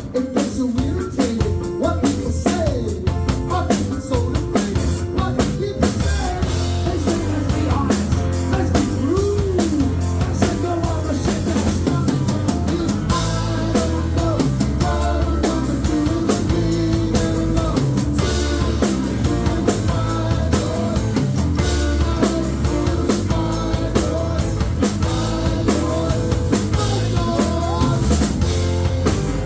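Rock band playing live: electric guitar lead over bass and a drum kit in an instrumental section.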